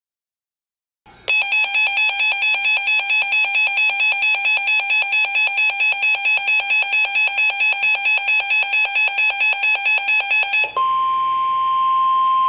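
Emergency Alert System alert tones. After about a second of silence, a loud, rapidly repeating electronic beeping starts, then switches after about ten seconds to one steady tone.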